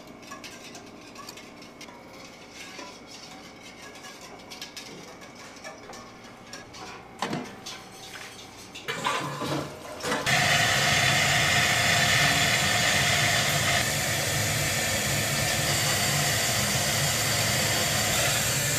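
Faint clicks and knocks of a metal pan and cutter being handled, then about halfway through a loud steady hiss of steam starts up in a commercial steamer and keeps going.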